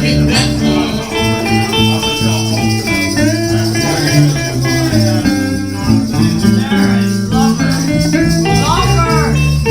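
Live acoustic music in an instrumental break between sung verses, with guitar playing prominently over a steady rhythm and some notes bending in pitch.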